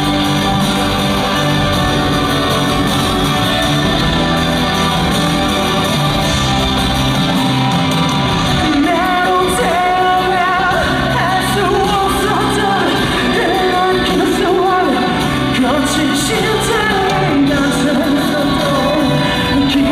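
Live band music played through a concert hall's sound system, with a male lead vocalist singing over it; his voice stands out more clearly from about halfway through.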